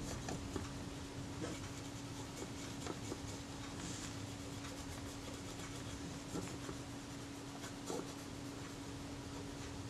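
Faint scratchy rubbing of a cotton bud working spirit-based dye into a camera's leather covering, with a few soft clicks, over a steady hum.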